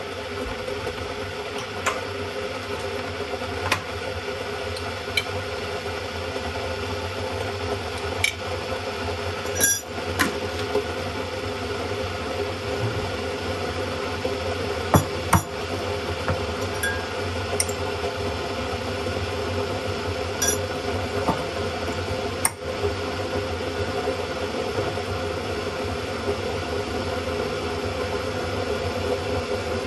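Bosch electric kettle heating water with a steady hiss and low hum, with occasional light clinks of glass and dishes.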